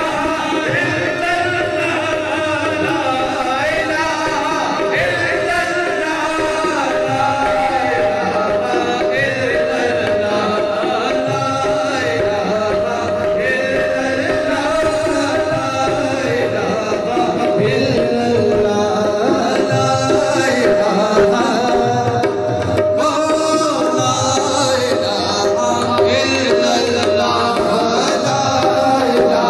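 Live qawwali: male voices singing with tabla drumming over a steady held note.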